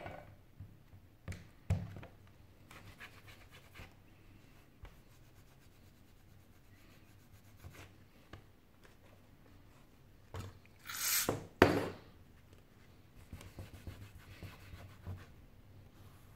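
Glass back panel of a Sony Xperia Z5 being handled on a work mat and wiped with a cloth: scattered light knocks and rubbing, with a louder rubbing scrape and a sharp knock a little past the middle, then soft rubbing near the end.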